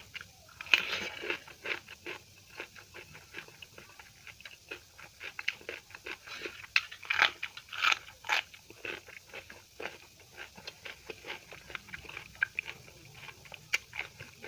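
Close-miked chewing and biting of someone eating: a dense, irregular run of wet clicks and crunches, louder about a second in and again around seven to eight seconds in.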